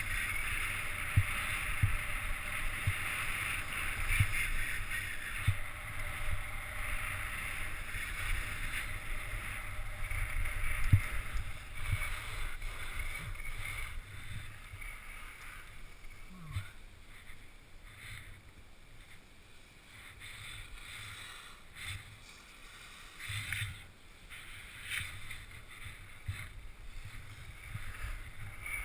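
Skis scraping and hissing over packed snow on a downhill run, with wind rumbling on the microphone. It is louder in the first half, eases off around the middle, and has a few short scrapes in the last third.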